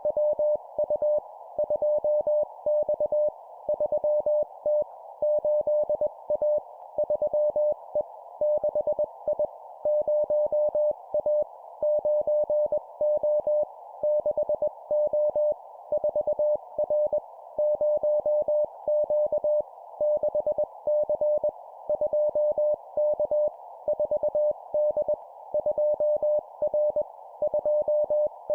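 Morse code (CW) practice at 20 words per minute: a single tone of about 600 Hz keyed in dits and dahs, sent as short two-character number-letter groups with brief pauses between them. A steady hiss of radio band noise runs underneath.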